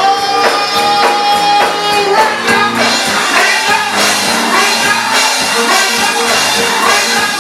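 Live gospel music with a tambourine marking a steady beat; a long note is held for about the first two seconds.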